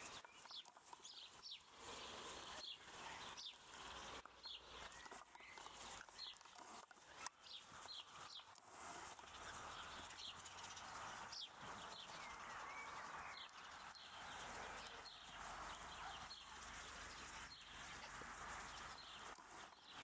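Faint outdoor ambience with birds chirping: many short, high chirps scattered throughout, over a soft steady hiss.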